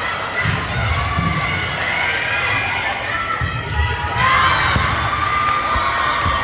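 Basketball game in a gym: a ball bouncing on the court under a crowd shouting and cheering, which grows louder about four seconds in.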